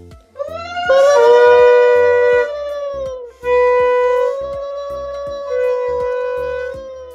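Conch shell (shankha) blown in two long held blasts for the Bhai Phonta ritual. The first rises in pitch as it starts, then settles into a loud steady note that breaks off about three seconds in. A second long blast follows straight after.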